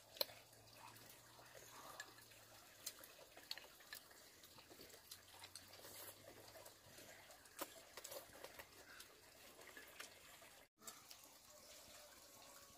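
Near silence, with faint, scattered, irregular clicks and ticks.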